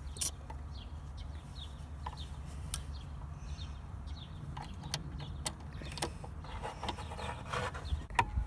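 Scattered sharp plastic clicks and rustling as a Ford F-150 dash cup holder assembly is handled and fitted back into place, over a steady low rumble. Short, falling bird chirps repeat in the background.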